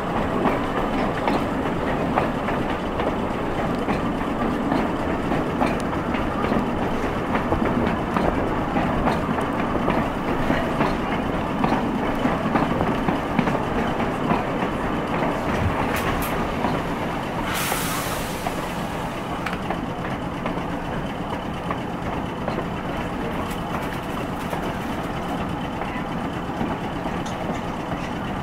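Heritage tram running along the line, heard from aboard: steady wheel-on-rail noise with a patter of small clicks and clatter from the track. A brief hiss sounds about two-thirds of the way through.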